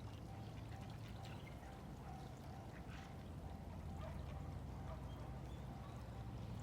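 River water trickling and dripping faintly over a steady low hum.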